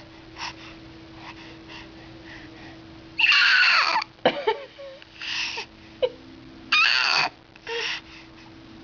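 A baby making high-pitched squealing, whiny vocal noises in four bursts, starting about three seconds in, the first the longest and some sliding down in pitch, over a faint steady hum.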